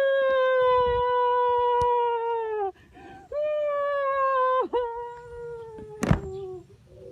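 A dog howling in long held notes that sag slightly in pitch, four howls with short breaks between them, and a sharp knock about six seconds in.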